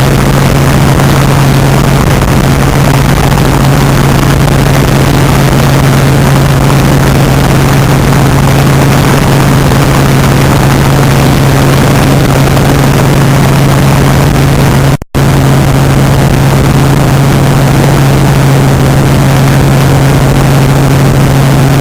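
Helicopter in flight: a loud, steady drone of engine and rotor with a constant low hum. It cuts out for a split second about fifteen seconds in.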